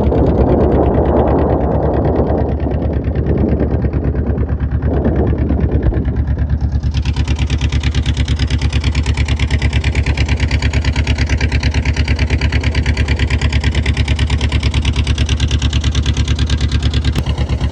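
Motor boat engine running steadily with a rapid, even beat. A rushing noise sits over it for the first six seconds or so, then the engine carries on alone.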